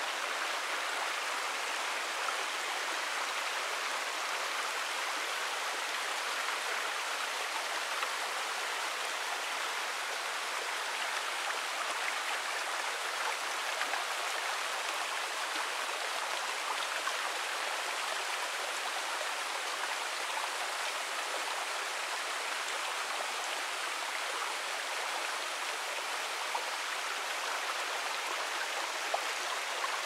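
Steady rushing of a mountain stream flowing over rocks: an even water noise that holds level throughout, with a few small clicks scattered through it.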